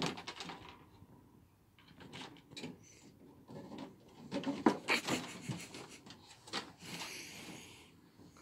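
West Highland white terrier sniffing around a patio lounger, with scattered knocks and rubbing against the lounger and wooden decking, the loudest cluster about halfway through.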